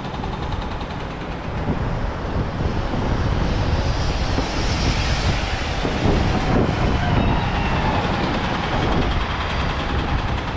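Steady rumble of a heavy vehicle passing on a city street, swelling about four seconds in, with a faint whine that glides up and down.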